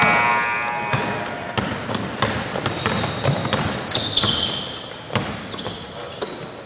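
Basketball bouncing on a gym floor during play, mixed with short high squeaks. A held buzzer-like tone cuts off about a second in.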